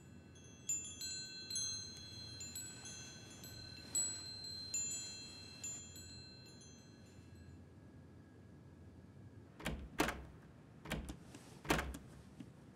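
High tinkling chime notes, struck one after another and ringing out for several seconds. Near the end, a few sharp knocks.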